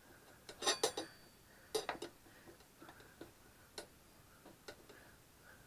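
Dirt bike tire being worked onto its wheel rim: sharp, irregular knocks and clicks, a quick cluster about a second in and another near two seconds, then fainter single clicks.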